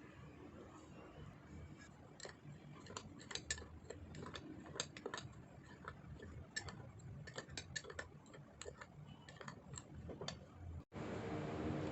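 A spoon clicking and tapping against a mug in quick irregular strokes while brownie batter ingredients are mixed in it. Near the end the sound cuts off abruptly and a louder steady hum begins.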